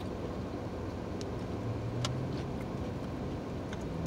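Steady low hum inside a car, with a few faint clicks of someone chewing and handling food.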